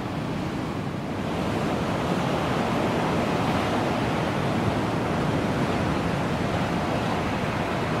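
Ocean surf: waves breaking and washing in, a steady rushing noise that gets louder about a second in.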